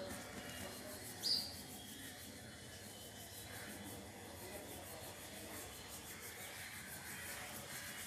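Steady faint rubbing and handling noise from a hand-held phone, with one short, high bird chirp about a second in.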